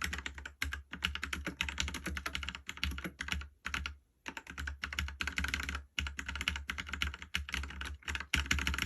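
ABKO Hacker K590 mechanical keyboard with brown switches being typed on rapidly: dense runs of keystroke clacks, broken by brief pauses about half a second in, around three and a half to four seconds, and near six seconds.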